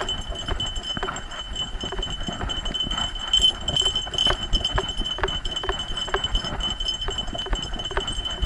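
Dog running on a dirt trail with an action camera harnessed to its back: a rhythmic knocking and rattling of the harness with each stride, about two or three a second. A steady high whine runs underneath.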